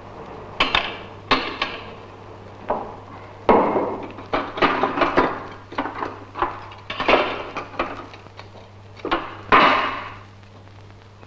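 A series of irregular sharp knocks and clinks, about a dozen hits with short ringing tails, the loudest about three and a half seconds in and near the end, over a steady low mains hum.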